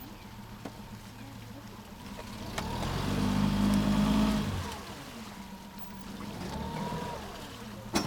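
A motor vehicle's engine passes close by, swelling to a peak about three to four seconds in and then fading away, over a steady low engine hum. A sharp click comes near the end.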